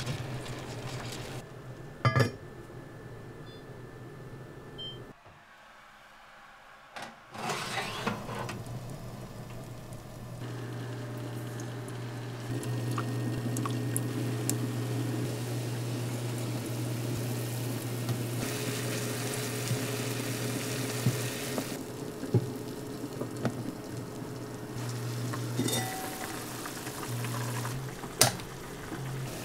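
Kitchen sounds: a sharp clink about two seconds in, then a steady low hum from an induction cooktop while a soy-sauce braising liquid simmers in a frying pan, and a few clinks and knocks of a glass storage container and its lid near the end.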